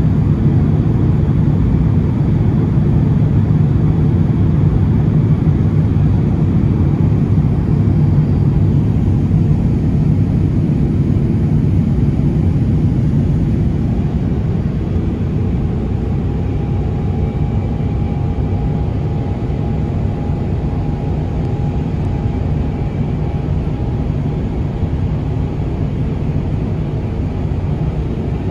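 Airbus A350-900 airliner's Rolls-Royce Trent XWB engines and airflow heard from inside the cabin: a loud, steady, deep drone. About halfway through, a faint steady higher tone joins in and the overall level eases slightly.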